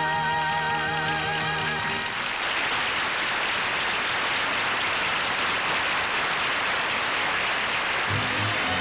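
A live pop song ends on a held sung chord with vibrato over the band, cut off about two seconds in. An audience applauds steadily, and the band strikes up the next number near the end.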